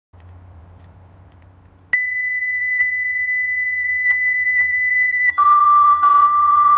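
Television end-of-broadcast sound effect: a faint low hum and hiss, then about two seconds in a steady, high test tone starts abruptly. About five seconds in it changes to a lower, louder steady tone with several other tones layered over it.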